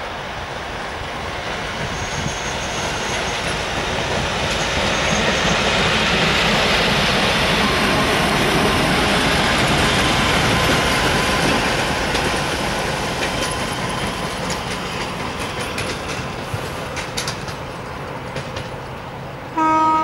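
DM62 diesel locomotive and its AMD3 rail-flaw-detector railcar running past: engine and wheel noise swell to a peak about halfway through, then fade as the train draws away. A short, loud horn blast sounds just before the end.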